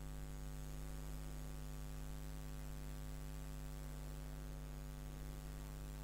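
Steady low electrical hum of a rotary glass-engraving drill running, as a soft grey rubber burr shades the glass.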